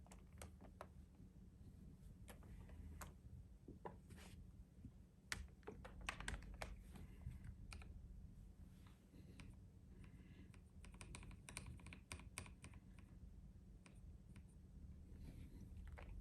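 Typing on a custom 60% mechanical keyboard fitted with lubed Cherion frankenswitches (Gateron bottom housings and springs, Cherry RGB tops and stems) in a sandwich-mounted acrylic plate. Quiet keystrokes come at uneven spacing, with quicker runs about five seconds in and again around eleven seconds.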